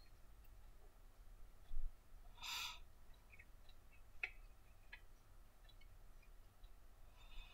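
Faint handling noises of small plastic and metal model-locomotive parts on a workbench: a soft bump, one short rustle about two and a half seconds in, then a few light clicks.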